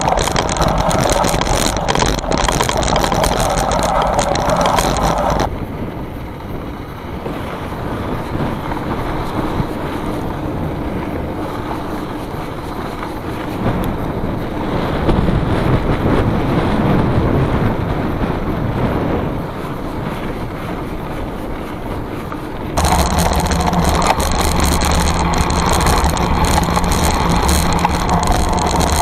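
Wind buffeting the camera's microphone over the rolling noise of a 1992 Trek 820 rigid-fork mountain bike riding a dirt and gravel trail on knobby Schwalbe Black Jack tyres. The sound turns quieter and duller about five seconds in and comes back louder and brighter about 23 seconds in.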